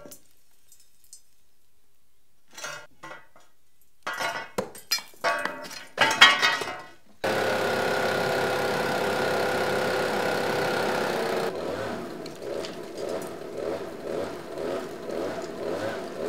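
Knocks and clattering of rubble and old metal pipe being broken loose, then from about seven seconds in a power saw starts suddenly and runs steadily through the pipework with a held tone, turning to an even rhythmic stroking for the last few seconds.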